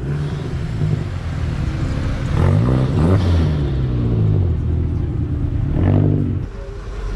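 Car engines running as cars drive by. Halfway through, an engine's pitch swings up and down as it revs past, and a shorter engine surge comes near the end.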